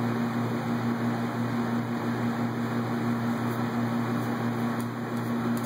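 A steady low machine hum over an even rushing noise, unchanging in level.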